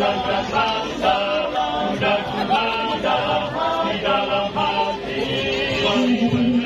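Masamper, the Sangihe tradition of unaccompanied male choral singing: a group of men singing in harmony, with a low note held near the end.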